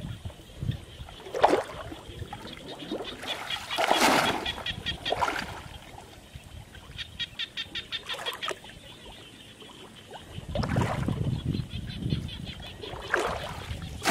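Muddy water sloshing and splashing in irregular bursts as a person wades waist-deep and works with her hands under the surface. Two quick runs of high, evenly spaced clicks come in, about three and about seven seconds in.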